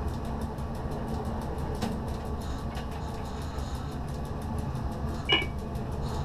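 Z 6400 electric multiple unit running along the line, heard inside the driver's cab: a steady low rumble of motors and wheels on rail. A single short, high beep sounds about five seconds in.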